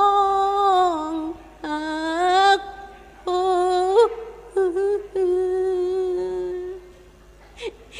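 A woman singing unaccompanied into a microphone in the Thai sarabhanya style of Buddhist chant-song: a few long, wavering held notes in separate phrases with short breaks between them, dying away near the end.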